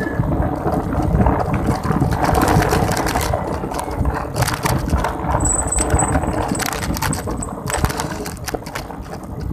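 Wind buffeting a phone microphone on a moving bicycle, with frequent rattling clicks throughout.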